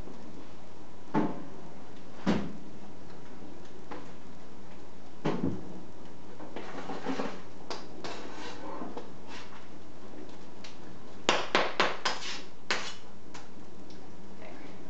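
Kitchen knife knocking on a plastic cutting board while cauliflower is cut: a few separate knocks, softer scraping in between, then a quick run of about five chops.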